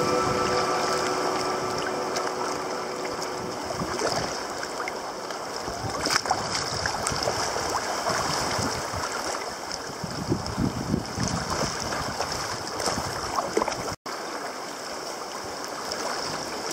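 Sea swell surging and sloshing around rocks and a sea kayak's hull in a narrow rocky channel. The rushing and splashing water is uneven, swelling and easing.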